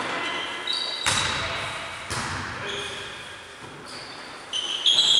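Volleyball being struck during a rally: a few sharp hits, two about a second apart and a weaker one later, each echoing around a large hall, with short high squeaks of shoes on the court floor.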